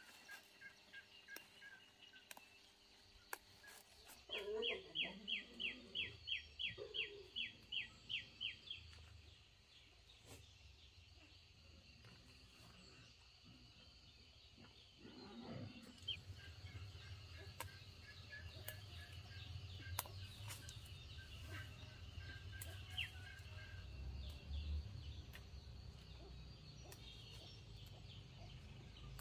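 Bird calls: a quick run of about a dozen repeated calls over some four seconds, then fainter scattered chirps. A low steady rumble comes in about halfway through.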